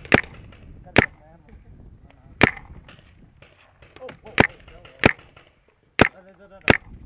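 Paintball markers firing: seven sharp, single shots, a second or so apart at uneven intervals.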